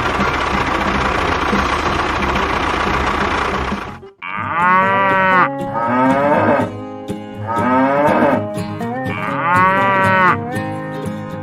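A steady loud rushing noise cuts off abruptly about four seconds in. A cow then moos four times, each call about a second long and rising and falling in pitch.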